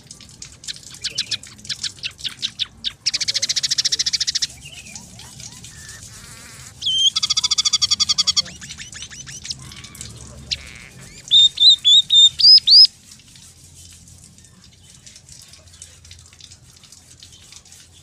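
Scaly-breasted munia singing in bursts: quick ticking notes, then two fast buzzy trills, then the loudest phrase, a run of about six clear whistled notes ending in rising glides.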